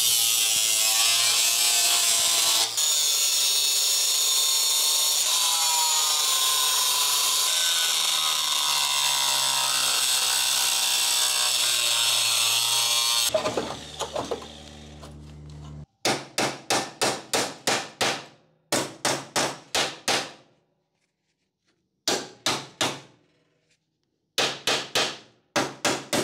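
Angle grinder with a cut-off wheel cutting notches in steel, a loud steady grind whose pitch wavers as the wheel bites, stopping about thirteen seconds in. Later come quick runs of sharp hammer blows on metal, about three a second, with short pauses between runs.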